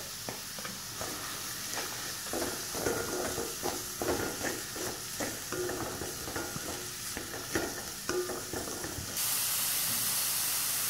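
Diced chicken, onion and carrot sizzling in oil in a metal pan while a spatula scrapes and knocks against the pan in irregular strokes. About nine seconds in, the stirring stops and a steady, louder sizzle takes over.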